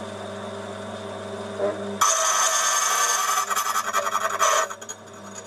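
Key-duplicating machine's motor running with a steady hum. About two seconds in, the cutter bites into the key blank with loud harsh grinding and scraping for about two and a half seconds, cutting the notch for the second pin at depth 6, then the motor hums on.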